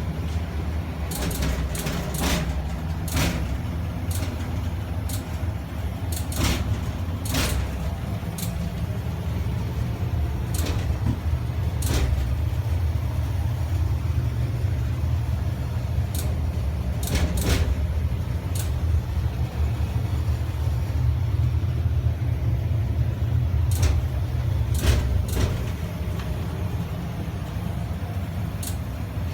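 Furnace running with the air conditioning on: a steady low rumble with sharp bangs at irregular intervals, several coming in quick clusters of two or three.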